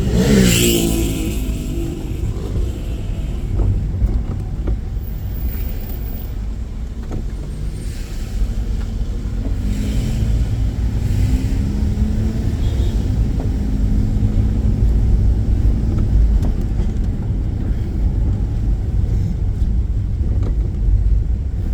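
Car driving slowly in traffic: a steady low rumble of engine and road noise. Right at the start there is a brief louder rush that falls in pitch.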